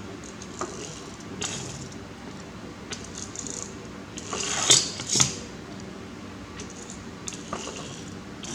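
Light clicks and clinks of small hard parts being handled, with two louder scraping bursts in the middle, the second one short and sharp.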